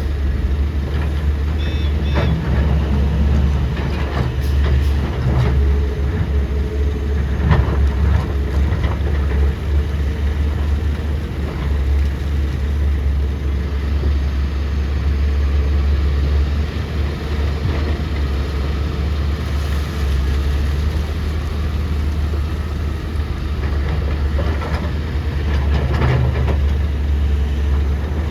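Heavy diesel engine of an excavator running steadily with a deep, constant rumble, with a few short metallic clanks from the machine at work.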